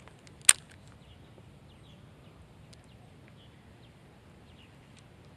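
Quiet lakeshore ambience with faint, scattered bird chirps, and a single sharp click about half a second in.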